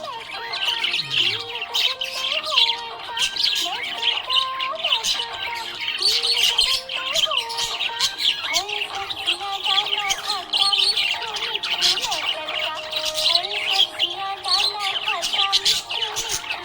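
A flock of budgerigars chirping and squawking continuously in quick, overlapping calls. Under them runs background music with a stepping melody.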